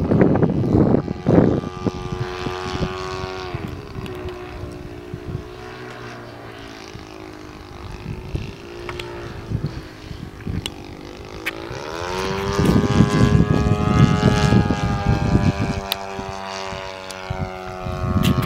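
Great Planes U Can Do 3D .46 RC model airplane's engine and propeller in flight. The engine pitch drops about three seconds in and runs lower and quieter, then rises again to a louder, higher note about two-thirds of the way through. Wind buffets the microphone with heavy gusts, strongest at the start and in the second half.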